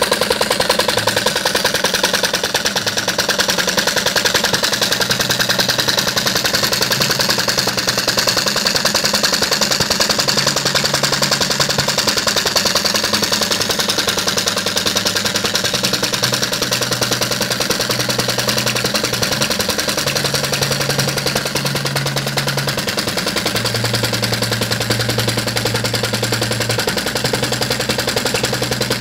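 Small flame-licker (vacuum) engine running steadily, its valve and piston making a fast, even clatter of rapid clicks.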